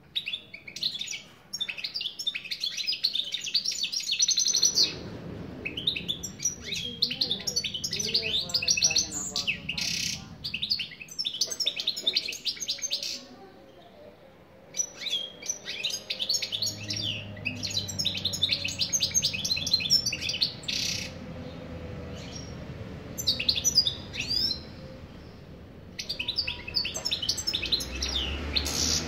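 Male European goldfinch singing: rapid, tinkling twitters and trills in several long phrases broken by short pauses.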